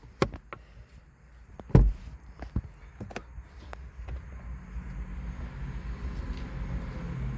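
A few knocks and a heavy thump, then a car engine's low hum that builds steadily louder over the last few seconds.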